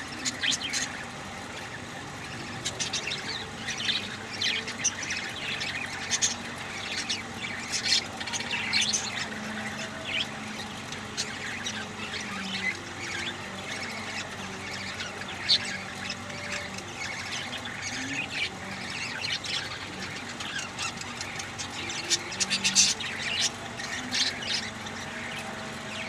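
Pet budgerigars chirping and chattering in a cage: a continual run of short, sharp, high calls, busiest near the start and again toward the end.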